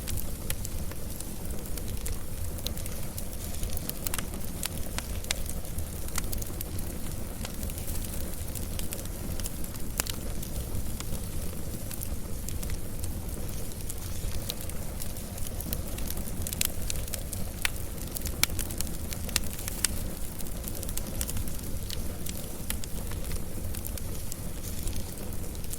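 Wood fire burning with a steady low rumble and frequent sharp crackles and pops.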